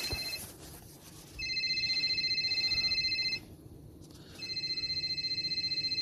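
2018 Subaru WRX's interior warning chime ringing with the power on and a door open: a trilled electronic ring, about two seconds on and one second off, repeating.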